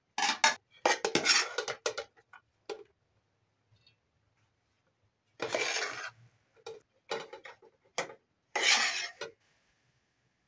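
Metal spoon scraping and clinking against metal dishes and pots while cooked rice is scooped, in four short spells of scraping with pauses between.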